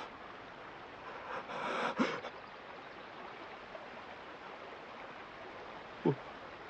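A man's sharp, breathy gasp about two seconds in, then near the end a brief grunt falling in pitch, over a faint steady outdoor background.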